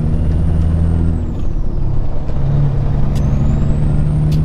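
Peterbilt 379 truck's diesel engine running under way, heard in the cab, with a high turbo whistle over the low drone. About a second in, the engine note and the whistle drop away for about a second, then the engine picks up again and the whistle climbs back.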